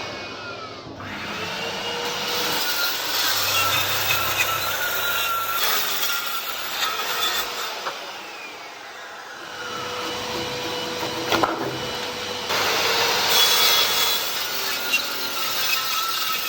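Hand tools cutting and shaving a wooden board, a continuous rasping of blade on wood that changes abruptly a few times.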